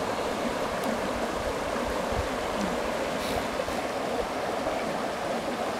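Creek water rushing steadily over rocks and through a riffle below a culvert.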